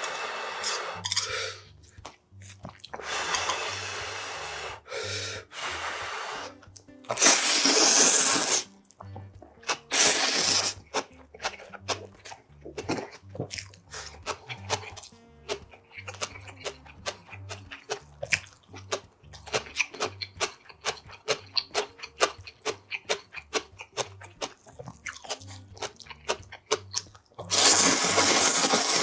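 A person slurping spicy Korean instant ramen noodles in three loud slurps, the last near the end. Wet chewing and crunching fill the gaps between them.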